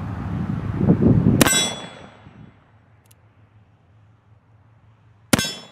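Two shots from a .44-caliber Pietta 1858 Remington Sheriff's-model cap-and-ball revolver firing black powder, one about a second and a half in and the next about four seconds later, each a sharp crack with a brief metallic ring. A loud low rumble runs until the first shot.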